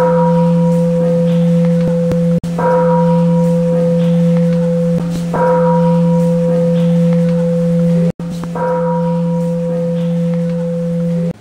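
Deep bell struck four times, about every three seconds, each strike ringing on over a steady low hum. The sound cuts out briefly twice between strikes.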